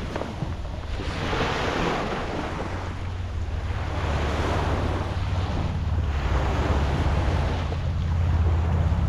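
Water waves washing in swells, with wind buffeting the microphone; a low rumble builds from about four seconds in.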